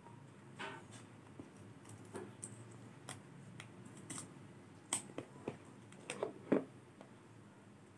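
Fingernails picking and scratching at the seal sticker of a cardboard smartphone box: a scatter of faint clicks and light taps, a little louder from about five seconds in.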